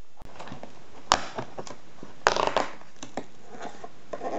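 Perforated cardboard door of an advent calendar being pressed in and torn open by hand: a sharp crack about a second in, then a louder spell of crackling and a few fainter ticks.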